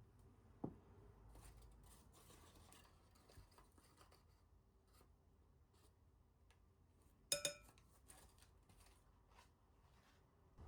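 Near-silent kitchen handling: faint taps and rustles, a sharp click about a second in, and a short ringing clink about seven seconds in.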